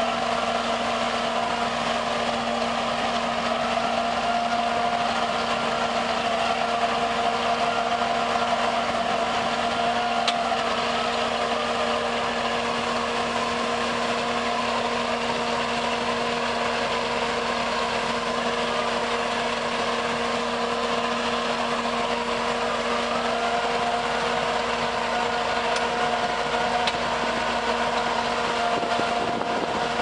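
Crawler tractor's diesel engine running steadily under load as it pulls a drainage plow through the soil: a continuous drone whose pitch wavers slightly a few times.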